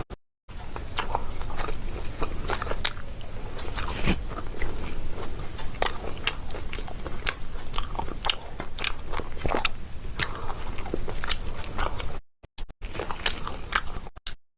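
Close-up crunchy biting and chewing of pomfret fish: a dense run of sharp crackles and crunches that cuts out abruptly a few times near the end.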